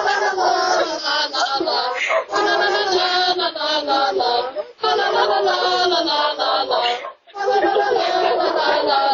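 A group of carolers singing a Christmas carol, with short breaks between phrases.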